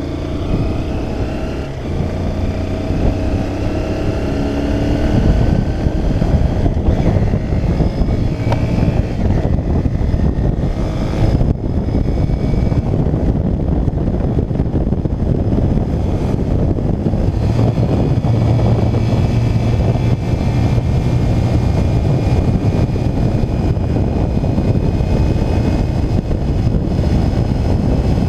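Honda CBF125's single-cylinder four-stroke engine revving hard under acceleration. Its pitch climbs several times in the first ten seconds as it pulls through the gears, then it runs steadily at speed with wind rushing over the microphone.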